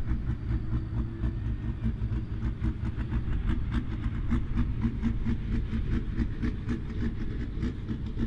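John Deere 4640's six-cylinder turbo diesel idling, with an even, rhythmic pulse.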